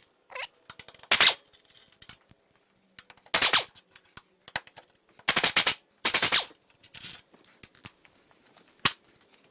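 Power impact wrench hammering in several short rattling bursts, each a third to half a second long, as it breaks loose and spins out the subframe bolts on a BMW E46 M3. A single sharp click comes near the end.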